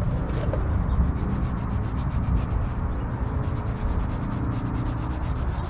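An oxidation-remover wipe rubbed back and forth over a yellowed plastic headlight lens, lifting the oxidation off: a steady scratchy rubbing that turns into fast, even strokes about three seconds in, over a low rumble.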